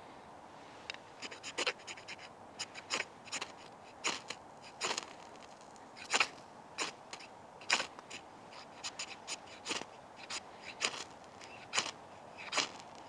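A knife scraped again and again down a ferrocerium rod (fire steel), about two dozen short rasping strikes at an uneven pace, throwing sparks to light a chapstick tinder.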